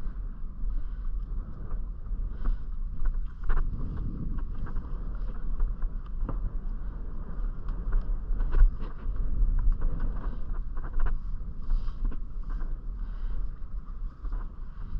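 Wind buffeting the microphone on a small fishing boat at sea, a steady low rumble with scattered light knocks.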